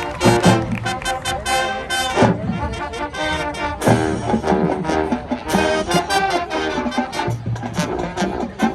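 High school marching band playing: brass (trombones and trumpets) over a driving drumline with frequent sharp drum hits.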